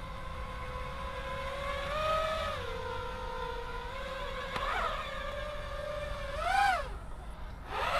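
ImmersionRC Vortex 250 Pro quadcopter's motors and propellers whining as it hovers low, the pitch shifting with throttle. The pitch climbs sharply and drops back about six and a half seconds in, then rises again near the end.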